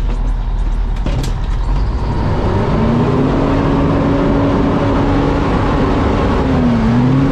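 Fire truck engine running under load, heard from inside the cab. Its revs rise about two and a half seconds in, hold steady, then dip and rise again near the end.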